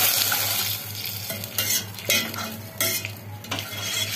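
Water hitting hot fried onions and oil in a stainless-steel pot hisses loudly and dies down about a second in; a metal spoon then stirs the pot, knocking against the steel several times over a fainter sizzle.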